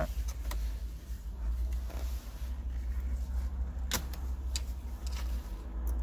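Light plastic clicks and taps from handling a console switch panel and its plastic wiring connector, with one sharper click about four seconds in, over a steady low rumble.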